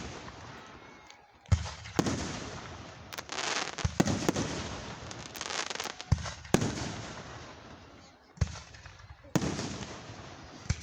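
Aerial firework shells bursting overhead: about eight sharp bangs spread irregularly over ten seconds, each trailing off in a long echoing decay.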